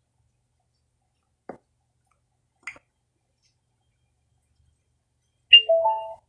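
Bluetooth receiver module (XY-BT) wired into the car radio's auxiliary input sounding its connection prompt through the speaker: a pop followed by a short rising run of three tones, the sign that the phone has paired and connected. Two faint clicks come a few seconds before it.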